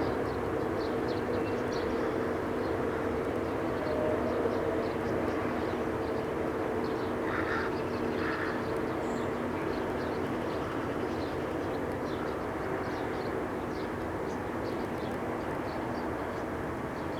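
Unexplained low droning hum made of several steady held tones, the kind of 'strange sound' reported from the sky in 2011. It weakens in the second half. Small birds chirp over it.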